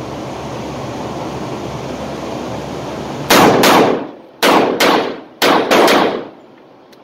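A string of revolver shots from a Rock Island Armory AL3.1 .357 Magnum, in three quick groups with echo off the range walls. The first two shots are louder full-power .357 Magnum rounds and the rest are milder .38 Special loads. Before the shots there is a steady hiss of range ventilation.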